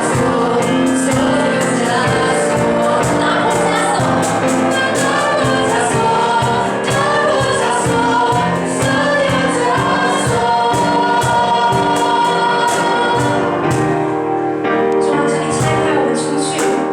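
A youth choir singing a gospel song with instrumental accompaniment, held notes over a steady beat.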